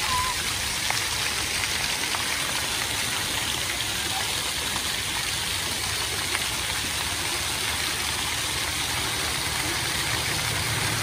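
Many jets of a floor-level dry-deck fountain spraying up through the grates and splashing down onto the wet paving: a steady hiss of falling water.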